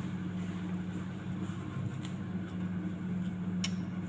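Steady low mechanical hum, with the soft scraping of a wire whisk stirring dry pancake mix in a ceramic bowl and two faint clicks in the second half.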